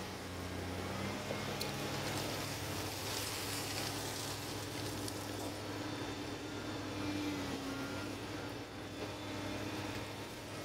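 Komatsu PC300 excavator's diesel engine running under working load, a steady low hum whose pitch steps up about a second in. A higher whine rises and falls through the middle while the boom swings and the bucket digs.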